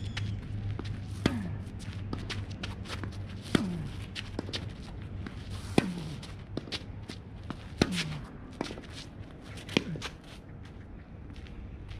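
Tennis ball struck by rackets in a rally: five sharp pops about two seconds apart, each with a short falling ring. Shoes scuff and patter on the dirt court between hits. A low steady hum stops about halfway through.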